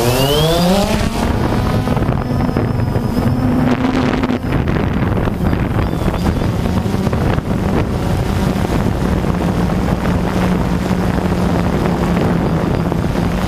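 Multirotor drone's electric motors and propellers spooling up with a rising whine as it lifts off, then running with a steady hum as it climbs and flies. The pitch drops a little about four seconds in. Wind noise is on the microphone.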